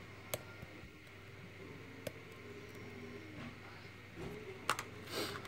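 A few small, sharp clicks and a brief scrape from a lock pick and tension wrench working the seven-pin core of a Best 21B padlock, over a faint steady hum.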